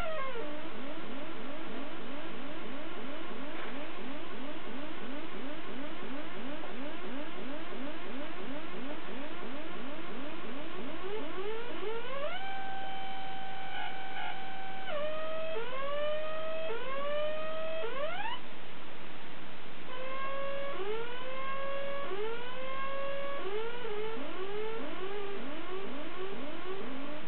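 Homemade beepbox of two linked neon relaxation oscillators chirping. A fast train of short rising chirps, about three or four a second, gives way about halfway through to a steady held tone. Then come slower rising whoops, about one a second.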